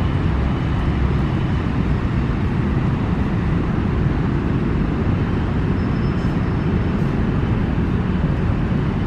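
Steady low rumble of city traffic, even throughout, with a faint brief high tone about six seconds in.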